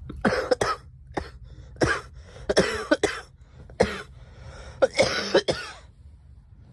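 A girl coughing repeatedly: about six bouts of coughs, some coming in quick pairs, with short pauses between.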